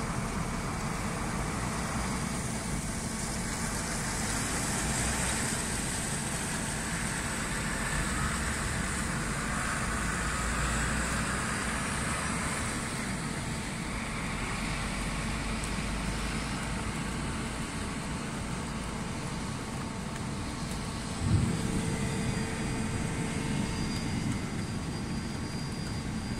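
Heavy truck carrying a waste container driving off on a wet road, with steady engine and tyre noise. One sharp thump sounds late on.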